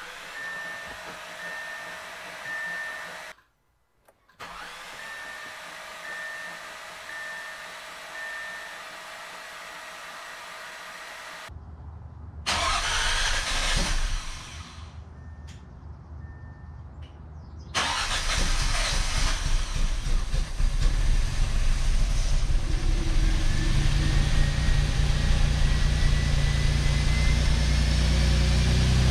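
Repeated short electronic beeps, then the Audi 3.0 supercharged V6 is cranked and starts, running loud and steady for the last third or so. This is the engine's first start after a piston soak, with B12 cleaner in the cylinders and in the oil.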